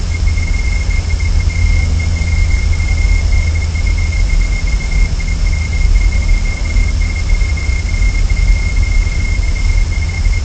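Steady noise from the nest-cam microphone: a low rumble and hiss with a constant thin, high-pitched whine over it. No eagle calls are heard.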